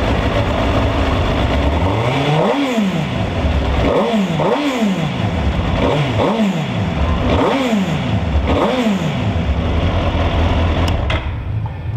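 2006 Suzuki GSX-R1000's inline-four engine idling, then revved about six times with quick throttle blips, each rising and falling straight back to idle. It revs up freely.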